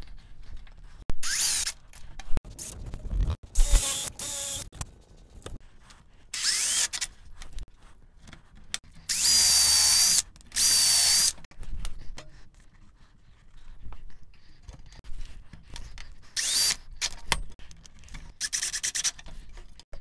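Cordless drill driving screws into wooden wedge blocks on a 2x4, in about seven short runs of a second or two each, with two longer runs back to back about nine to eleven seconds in. Quieter clicks and knocks of handling come between the runs.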